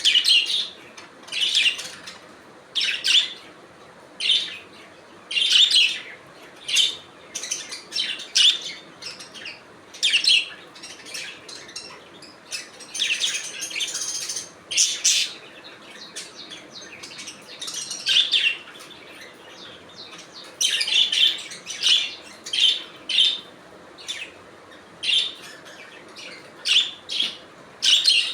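Budgies chirping in short, high calls, roughly one a second, with a longer stretch of chatter about halfway through.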